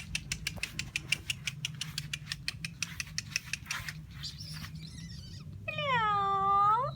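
Yorkshire terrier puppy's claws pattering in quick, even clicks on a hard floor as it runs, followed near the end by about a second of a high puppy whine that dips and then rises in pitch.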